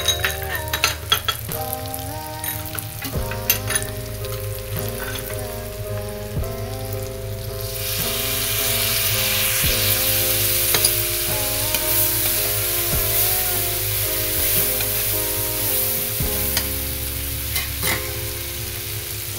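Peanuts, potato cubes, onions and peas sizzling in oil in a kadhai, with a metal slotted spoon clicking and scraping against the pan in the first few seconds. The sizzling grows louder and denser about eight seconds in. Background music with long held notes runs underneath.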